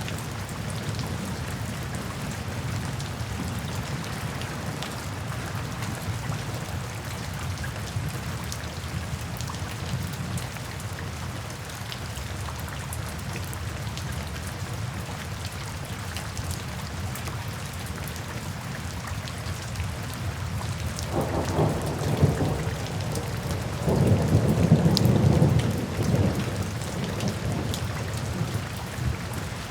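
Steady rain falling into puddles and standing water. About two-thirds of the way through, a rumble of thunder rises, is loudest for a couple of seconds, then fades back under the rain.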